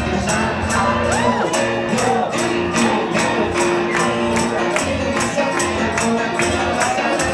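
Live band music with singing, sustained chords and a fast, steady high percussion beat at about three to four strokes a second, with the crowd in the room audible underneath.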